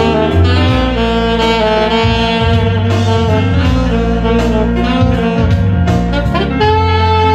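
Saxophone playing a melody in long held notes over an accompaniment with a steady bass and an even beat.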